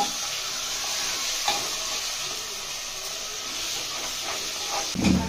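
Mutton pieces sizzling in hot fried masala in an aluminium pressure cooker while a steel spoon stirs and scrapes them, with a click about a second and a half in. A low thump near the end is the loudest sound.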